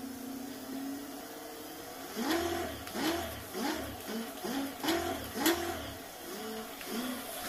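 Small geared e-bike hub motor whining steadily, then spinning up again and again in about ten short bursts with a rising whine each time, under a second apart, as the throttle is pressed and released on an experimental open-source controller.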